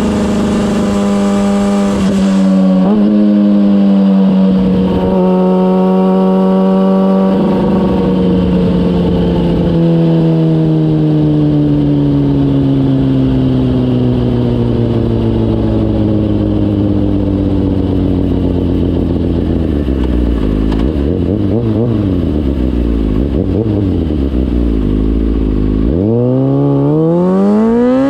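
2004 Kawasaki ZX-6R inline-four engine through a MIVV GP exhaust, ridden. It holds high revs with a few brief dips early on. The note then falls slowly over about ten seconds as the bike slows, wavers at low revs, and revs up sharply near the end.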